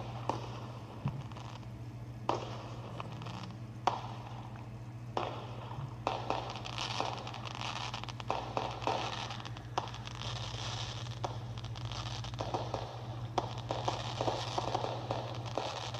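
Firework burning with a continuous hiss and many sharp crackling pops scattered throughout, typical of a ground fountain or crackling firework.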